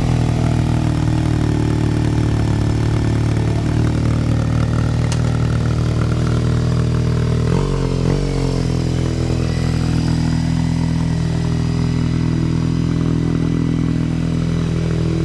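Motorcycle engine idling steadily just after being started, given two quick blips of the throttle about halfway through before settling back to idle.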